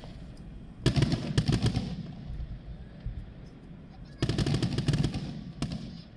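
Fireworks going off in two rapid volleys of sharp bangs, one about a second in and one about four seconds in, each lasting over a second, with a single crack just after the second.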